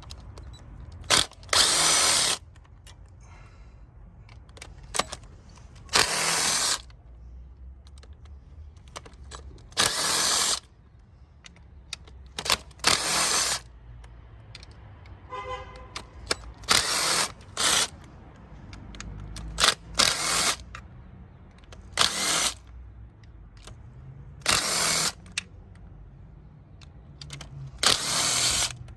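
Cordless power tool spinning out the engine's rocker cover bolts in short bursts of under a second, about a dozen times.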